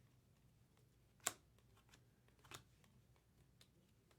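Trading cards being flipped through by hand, giving soft clicks: a sharp tap about a second in, another past halfway, and faint ticks between.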